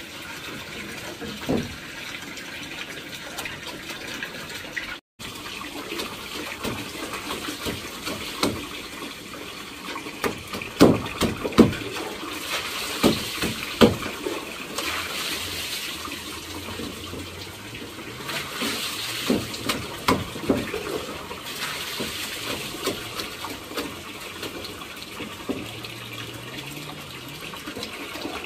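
Water running or splashing steadily, with scattered knocks and clatter, a cluster of louder knocks about halfway through.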